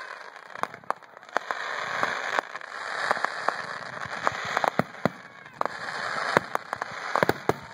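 Aerial fireworks shells bursting, with many sharp bangs and pops in quick succession over a dense crackling hiss that swells and fades in waves.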